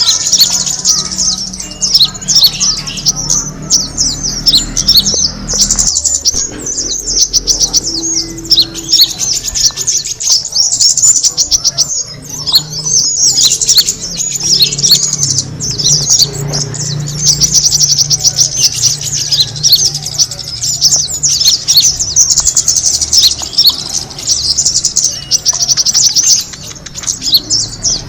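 Kemade bird lure call: a dense, continuous run of rapid high-pitched chirps and trills, repeating without pause, over a faint low hum.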